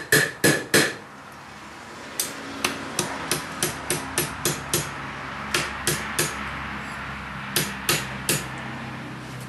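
Blacksmith's hammer striking an iron hook against the anvil horn, bending the curve. It comes in bursts of blows with short pauses between them. The first few blows are the loudest and ring with a high tone.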